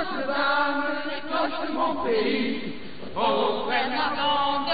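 A group of people chanting together in unison in drawn-out notes, fading for about a second in the middle before picking up again.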